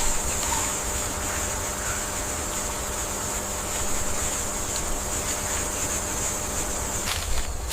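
Steady ambient noise: a constant high hiss over a low rumble, with a few faint clicks near the end.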